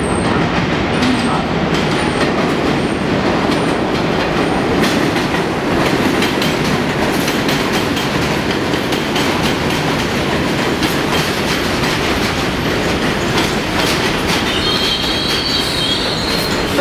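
New York City Subway train rolling into the station, its wheels rumbling and clacking over the rail joints. A high-pitched wheel squeal starts a couple of seconds before the end as it slows.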